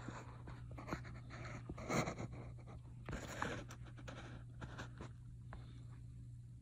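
Faint scrapes and light clicks of handling, over a steady low hum.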